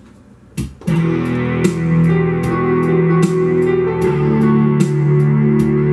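Yamaha YPG-235 keyboard's overdriven guitar voice played live as rock rhythm chords, over the keyboard's playback of a drum pattern and a piano melody, starting about a second in.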